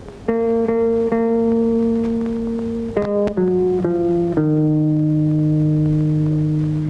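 Soundtrack music on guitar: a few plucked notes ring out, a quick run of notes follows about three seconds in, and it settles on one long sustained lower note.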